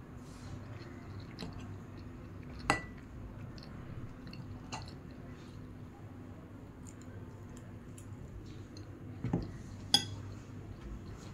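Tableware clinking during a meal: a handful of sharp knocks of cutlery and a cup against dishes, the loudest about three seconds in with a brief ring, another about two seconds later, and a quick pair near the end, over a low steady hum.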